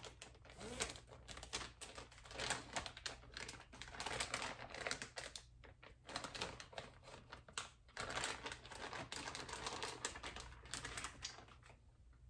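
Plastic zip-top storage bag crinkling and crackling as it is handled and opened, in irregular clusters of small clicks with short lulls between them.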